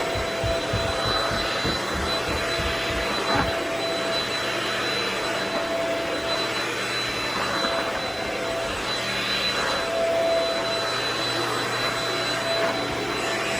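Upright household vacuum cleaner running steadily while vacuuming a bedroom floor, its motor noise carrying a thin, steady high whine.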